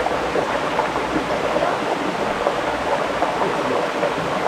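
Mountain stream water rushing steadily over rocks, a constant full-band rush.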